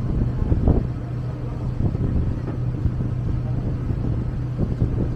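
A boat's engine running with a steady low hum, with wind buffeting the microphone in uneven gusts.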